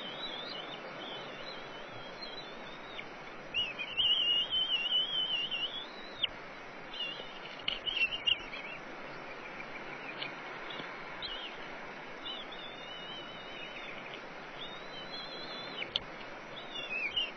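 A bird calling in several bursts of high, quickly wavering trills, loudest about four seconds in, over a steady background hiss.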